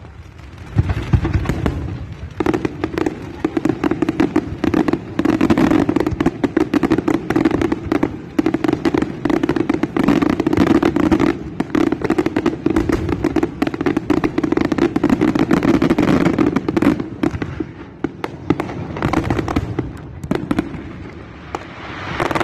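Fireworks going off in a dense, rapid barrage of bangs and crackles, easing off for a moment twice near the end before picking up again.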